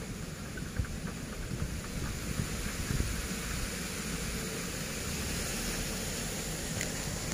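Outdoor wind buffeting the microphone: uneven low gusts over a steady hiss.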